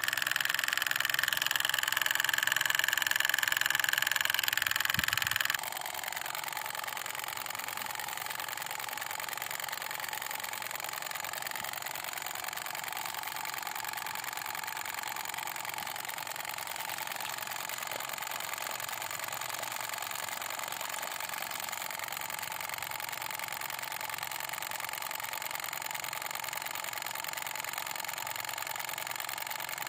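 Small motor of a miniature diesel water pump model running steadily with a fixed whine; the level drops suddenly about five and a half seconds in and it carries on quieter.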